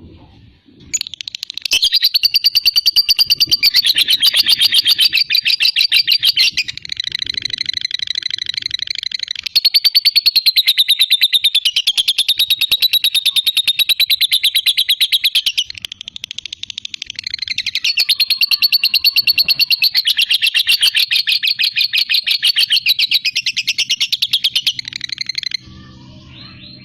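Lovebird doing its long 'ngekek' chatter, a rapid, unbroken stream of sharp high chirps. It starts about a second in, runs on for many seconds with a brief break around the middle, then resumes and stops just before the end.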